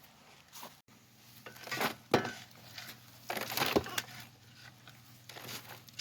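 Wood-chip mulch being dug and scooped from a pile, two rustling crunches about one and a half and three and a half seconds in, with a few lighter ticks of chips between.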